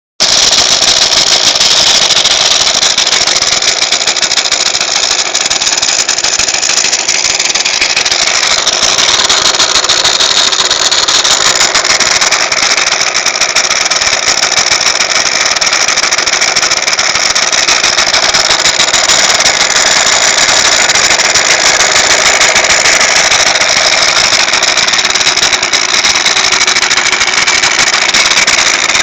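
Aprilia Scarabeo scooter running steadily, with a noise from its clutch assembly whose cause the owner does not know.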